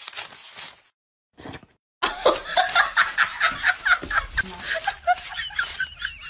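A person laughing in quick, rapid pulses, breaking in suddenly about two seconds in after a brief silence.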